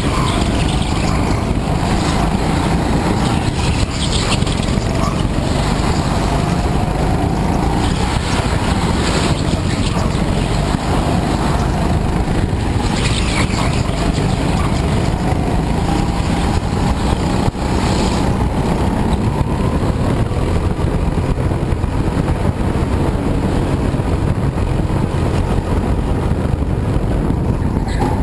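Go-kart engine running hard, heard from on board the kart, its pitch slowly rising and falling as the kart slows for corners and accelerates out of them, under a loud rushing noise.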